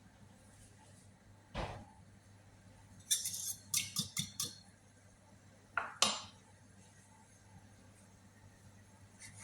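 Kitchen utensils knocking and clinking against dishes and cookware. There is a dull knock about a second and a half in, then a quick run of about five clinks, then two more knocks close together about six seconds in.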